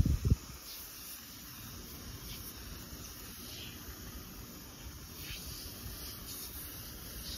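Armor All Extreme Shield + Ceramic glass cleaner aerosol can spraying onto a car's side window glass with a steady hiss. A brief low thump comes right at the start.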